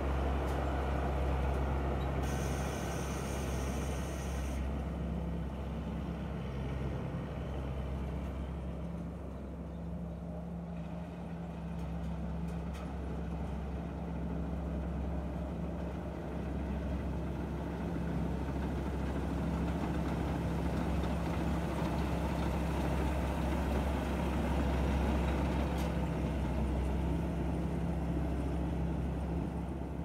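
Tamco Pro Z3000 combine harvester working through rice, with a steady low engine note from its Isuzu 6BG1 six-cylinder diesel under the churn of the header and threshing machinery.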